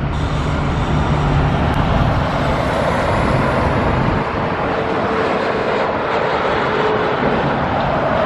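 A motor vehicle passing close by: steady engine and tyre noise, with a low engine hum that fades about halfway through.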